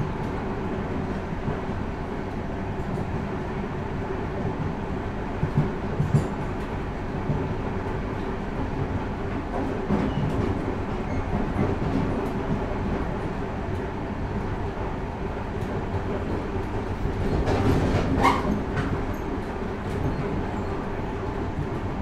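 Inside a train's vestibule under way: steady rumble and clatter of the wheels on the rails with a constant hum. Scattered knocks come through, and a louder burst of knocking with a brief ringing tone comes near the end.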